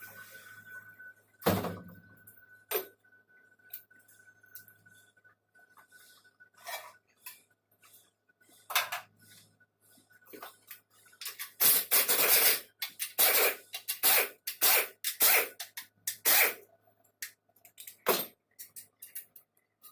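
Hand tools and metal engine parts clinking, knocking and scraping as an engine is torn down. The knocks are scattered at first, then a busy run of clatter comes about twelve to sixteen seconds in.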